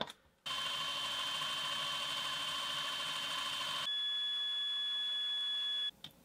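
A small electric drill runs with a steady high whine as a twist bit drills out the rivet post on a diecast toy car's zinc base. The pitch steps up slightly about four seconds in, and the sound cuts off abruptly near the end.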